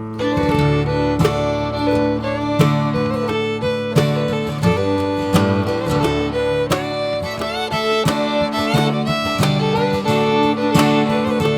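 Background music: an acoustic guitar and a fiddle playing an upbeat country or bluegrass tune with a steady beat.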